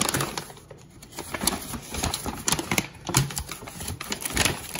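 Brown paper bag rustling and crinkling, with plastic ingredient packets, as a hand rummages inside it: irregular crackles and clicks.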